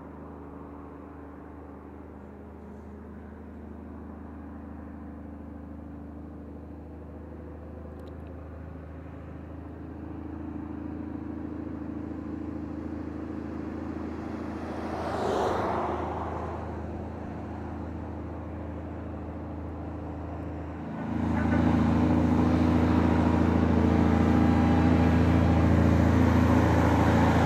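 Heavy loaded truck's diesel engine pulling up a steep grade, a steady low drone that slowly grows louder. A brief whoosh swells and fades about halfway, and near the end the engine suddenly becomes much louder and fuller.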